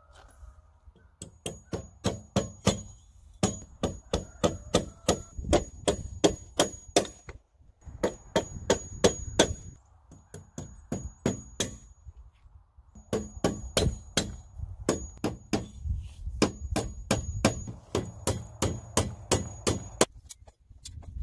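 Hammer driving nails through a metal joist hanger into a timber beam: quick runs of sharp metallic strikes, about three to four a second, each with a brief high ring, broken by short pauses.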